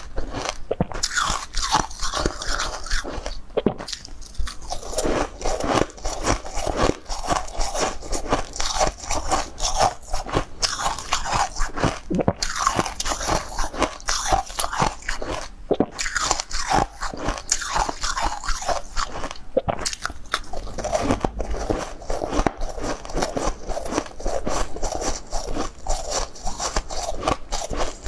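Close-miked biting and chewing of frost-covered frozen pink balls: a dense run of crisp, rapid crunches, broken by a few brief pauses.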